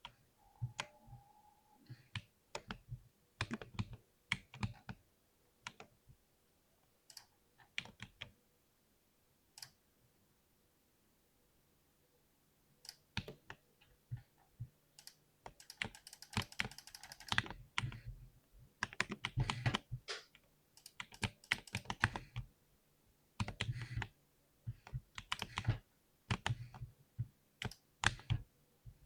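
Typing on a mechanical keyboard with Cherry MX Silver linear switches: uneven bursts of keystrokes, with a pause of a few seconds around the middle and a fast, dense flurry a little past halfway.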